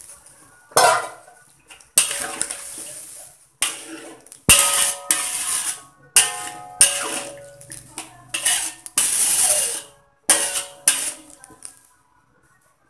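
Metal spoon stirring a thin coconut-milk curry in a metal wok, scraping and knocking against the pan in about ten quick strokes, many with a short metallic ring.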